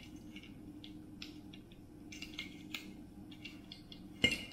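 Small plastic parts being handled and fitted: a laser module's cooling fan and circuit board pushed into its plastic housing, with light scrapes and scattered clicks and one sharper click near the end.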